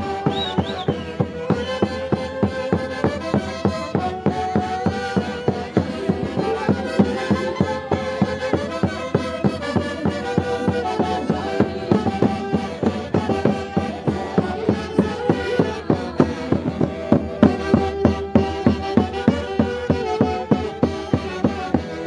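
Festive Andean dance music from a live festival orchestra: a melody on wind instruments and strings over a steady beat of about two pulses a second.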